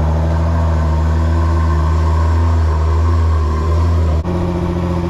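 Nissan GT-R's twin-turbo V6 idling steadily through an Armytrix valved exhaust with its valves closed. The tone changes abruptly about four seconds in.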